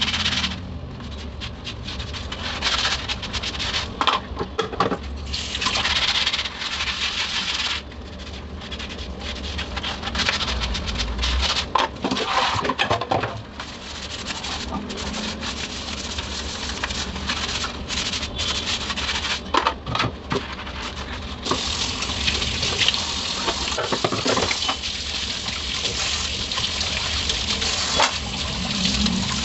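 Dishes being hand-washed in a stainless steel sink: a soapy sponge scrubbing, with utensils clicking and knocking against each other. About two-thirds of the way through, the tap comes on and runs steadily as the dishes are rinsed under it.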